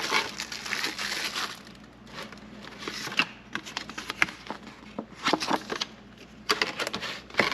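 Packaging crinkling and rustling as the contents of the air-filter box are handled, in several bursts with short pauses and a few sharp clicks.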